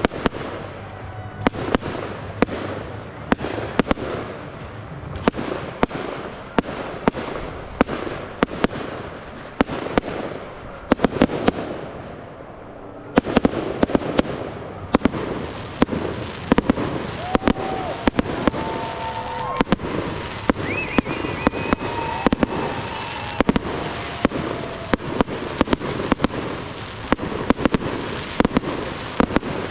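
Aerial fireworks shells launching and bursting in quick succession: a steady stream of sharp bangs with a crackling hiss between them. The barrage eases briefly a little before halfway, then comes back denser, with a brighter crackle filling the gaps.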